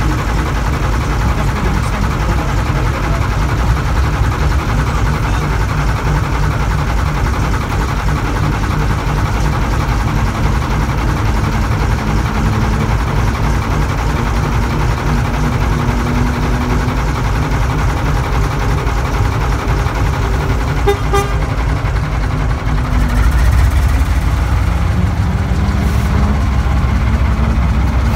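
Small diesel shunting locomotive's engine running close by as the loco moves along, a steady low pulsing; it grows louder about three-quarters of the way through as the engine works harder.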